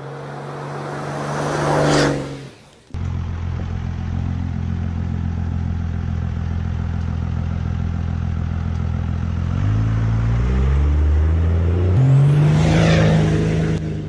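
Diesel engine of a 12-valve Cummins pickup truck driving. It grows louder up to about two seconds in, then, after a cut, runs as a steady low drone. Its pitch rises about ten seconds in as it accelerates, and it is loudest as it passes near the end.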